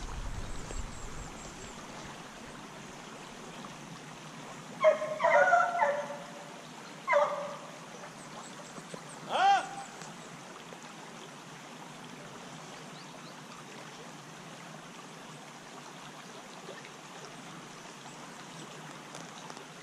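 Hunting dogs baying in the distance: a short run of yelping bays about five seconds in, then two single cries, over the steady trickle of a small woodland stream.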